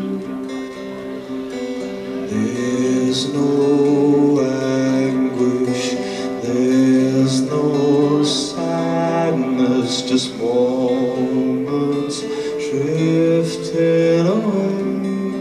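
Man singing a slow song live into a microphone over plucked guitar accompaniment. The voice comes in a couple of seconds in over held chords.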